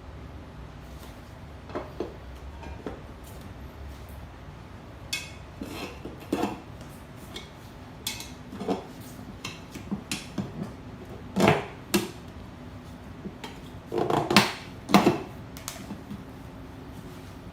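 Irregular metallic clinks and knocks of hand tools and parts being handled during a moped tire change, about a dozen strikes with the loudest coming in two clusters in the second half, over a faint steady low hum.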